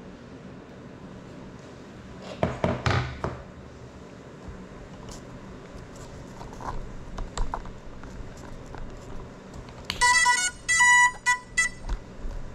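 A run of about five short electronic beeps, loud and pitched, over a little under two seconds near the end. Earlier, about two and a half seconds in, a brief burst of clattering, with a few faint clicks after it.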